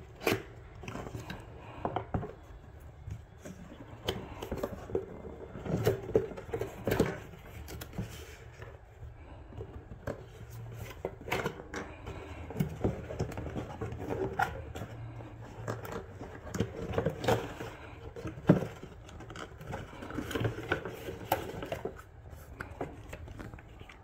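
Hands opening and handling a white paperboard product box: irregular scrapes, taps and rustles of cardboard flaps and a paper instruction sheet.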